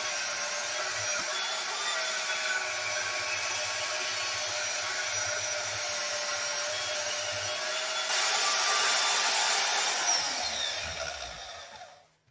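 Bauer portable band saw running and cutting through the rusty steel of an old exhaust muffler to sever the flange pipe. It gets louder about eight seconds in, then the motor winds down and stops near the end.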